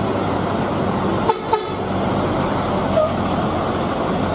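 Slow heavy road traffic with bus engines running close by, a steady low hum under road noise, and short horn toots about a second and a half in and again near three seconds.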